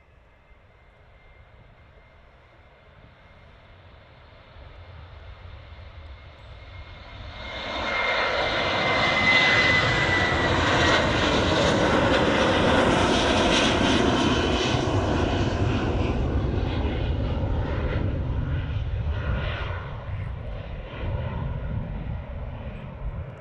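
Jet airliner taking off at full thrust: its engine roar builds over several seconds as it accelerates down the runway, peaks as it lifts off and passes, then slowly fades as it climbs away. A high engine whine dips in pitch as it goes by.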